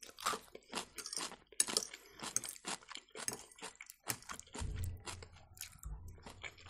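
Close-up chewing of crunchy sauerkraut, a run of irregular crisp crunches a few to the second.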